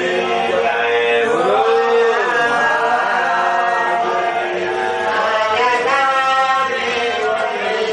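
Voices chanting a Hindu devotional hymn in long held notes that slide slowly up and down in pitch.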